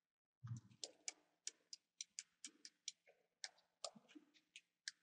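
Faint, sharp clicks of a computer mouse, more than a dozen at an uneven pace, about three or four a second. A short low thump comes about half a second in.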